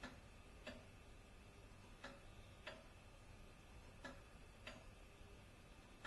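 Hall clock's pendulum movement ticking faintly, two ticks about every two seconds with a short gap and a long gap alternating, in an uneven tick-tock.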